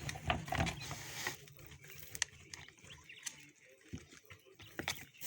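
Scattered knocks and rustling as old litter is shaken out of a container in a barn, busier in the first second or so and then a few separate knocks.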